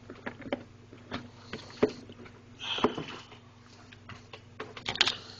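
Handling noise from unpacking paintball marker parts: scattered light clicks and taps, with a brief rustle about two and a half seconds in and a quick cluster of sharper clicks near the end.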